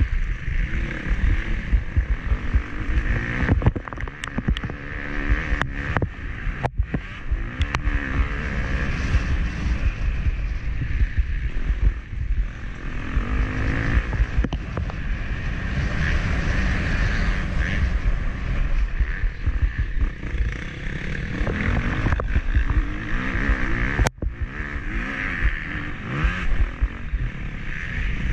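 Motocross bike engine revving up and down under race load, heard through an onboard action camera's microphone with heavy wind buffeting. The sound dips out briefly a few times, most sharply about 24 seconds in.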